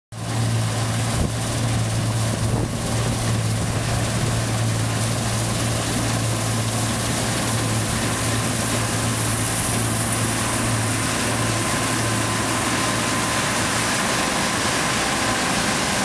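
Deutz-Fahr 6090 HTS combine harvester running under load as it cuts barley: a steady low engine drone over a broad, even rush of machinery noise.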